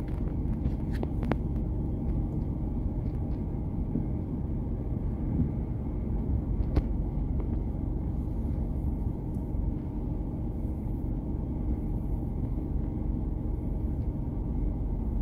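Steady low rumble inside the cabin of a car stopped at a light, its engine idling, with a few faint clicks about a second in and again midway.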